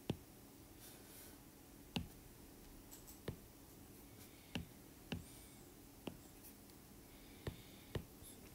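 Stylus tapping on a tablet's glass screen while a handwritten label is erased and rewritten: about eight sharp, separate clicks, irregularly spaced.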